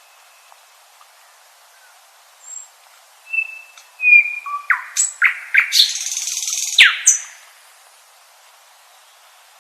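Common nightingale singing one song phrase: a few soft whistled notes, then a quick run of sweeping notes and a loud, dense rattle of about a second, ending on a sharp downward note.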